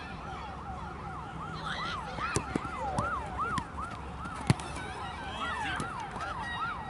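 A siren sounding in a fast yelp, its pitch sweeping up and down about three times a second. A few sharp knocks come over it, the loudest about halfway through.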